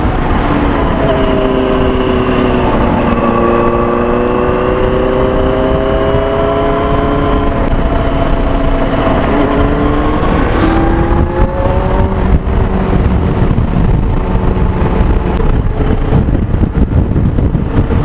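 Benelli 600i motorcycle's inline-four engine running under way. Its pitch climbs slowly, dips about nine seconds in, climbs again, then settles, under a heavy rumble of wind on the microphone.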